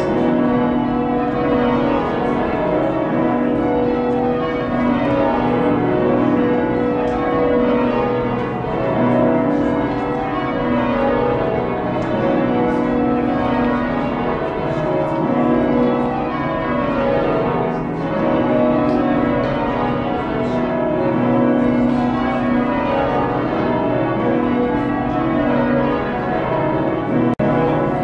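Change ringing on the bells of Worcester Cathedral, a heavy Taylor-cast ring with a 48 cwt tenor in B, heard from the ringing chamber. The bells strike one after another in a steady, continuous rhythm of changes.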